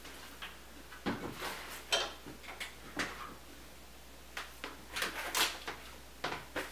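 Irregular knocks, clicks and short scrapes of objects being handled, spaced unevenly.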